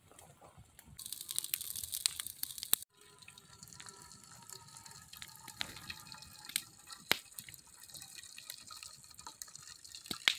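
Cooking liquid poured from a frying pan of ramen noodles into a camp pot, splashing and dripping, with scattered clicks. Before that, in the first three seconds, comes a hiss with sharp clicks that cuts off abruptly.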